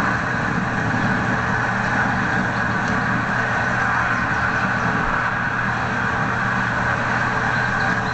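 Steady hiss with a low, even hum underneath and no distinct events.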